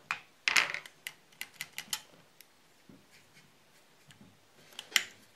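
Sharp small metal clicks and clinks from handling the Porter Cable FN250C nail gun's trigger assembly and a hand tool while the trigger retainer is refitted: a quick cluster of clicks in the first two seconds, a few scattered ones after, and one sharp click near the end.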